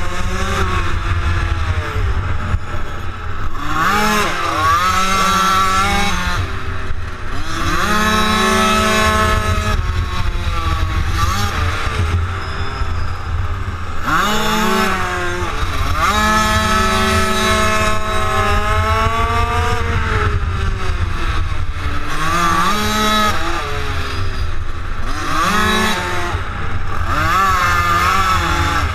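Minimotard's small single-cylinder engine heard onboard, revving up hard out of each corner and dropping back off the throttle going into the next, over and over. A steady wind rumble on the microphone runs underneath.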